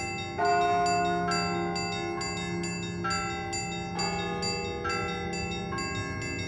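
Church bells ringing: several bells of different pitches struck in a repeating pattern, a few strokes a second, with a louder stroke about every three and a half seconds and each stroke left to ring on.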